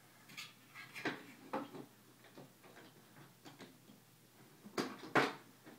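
Wooden toy trains and track pieces clicking and clattering on a train table as they are handled, with two louder knocks about five seconds in.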